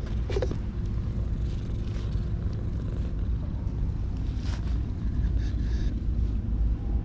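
A steady low rumble, with a couple of soft rustling pats of a hand on a cat's fur, one near the start and one about four and a half seconds in.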